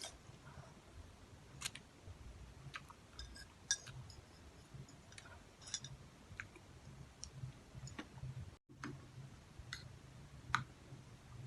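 Close-miked eating of instant cup noodles in spicy soup: scattered, irregular soft mouth clicks and smacks of chewing, about a dozen in all.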